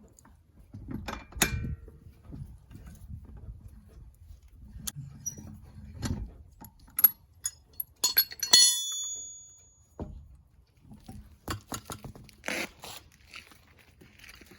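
Loose steel lug nuts and the wheel being handled during a tire change: scattered metal clinks and knocks with a few dull thumps, and one ringing metallic clink about eight seconds in.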